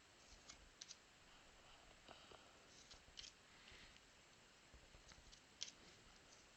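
Trading cards being flipped through and slid off a stack by hand. Faint, scattered clicks and snaps of card stock come every second or so.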